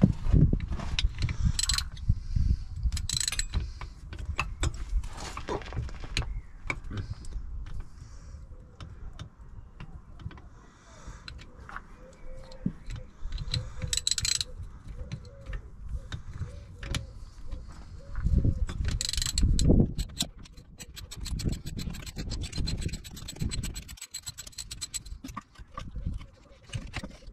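Hand tools working on the shift-linkage and shifter-bracket bolts under a car: irregular metal clinks and knocks, with short bursts of rapid clicking a few times and heavier knocks near the end.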